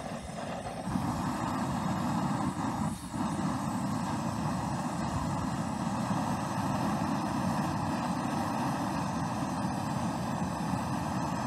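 Steady vehicle engine and road noise, a motor vehicle driving, with a brief dip about three seconds in.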